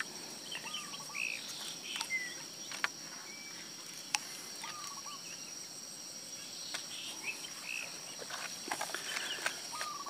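Steady high-pitched trilling of insects such as crickets, with scattered short chirps over it. A few light clicks come from fishing gear being handled, with a cluster near the end as a plastic tackle box is picked up.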